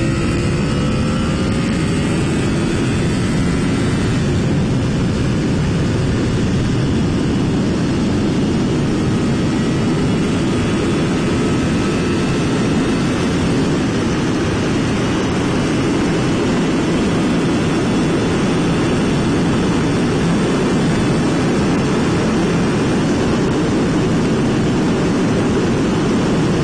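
Honda VFR V4 motorcycle engine accelerating under a helmet microphone, its note climbing over the first few seconds. It then gives way to a steady rush of wind and engine noise at speed.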